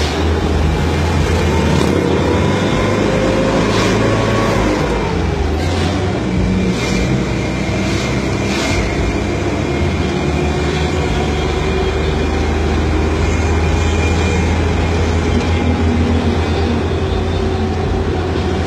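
Bus engine running hard under load, with a steady low rumble and road noise. The engine pitch climbs over the first few seconds, then drops about four and a half seconds in, and the engine runs on evenly after that.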